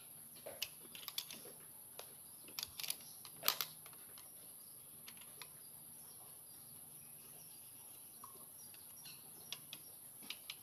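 Faint, scattered metallic clicks and taps of a screwdriver and spanner working a rocker-arm adjusting screw and locknut on a six-cylinder diesel cylinder head while the valve clearance is set. The clicks come in a cluster at first, then stop for a while, with a few more near the end.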